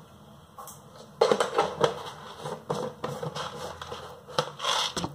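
A red plastic kitchen container being handled and its lid worked open: a quick run of small clicks, knocks and rattles starting about a second in.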